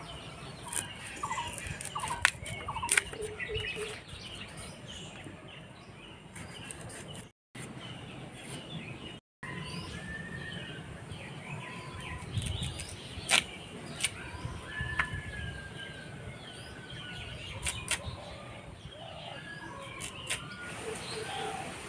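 Birds chirping and calling, many short whistled calls and chirps. A few sharp clicks come from a boti blade cutting giant taro (man kochu) into cubes.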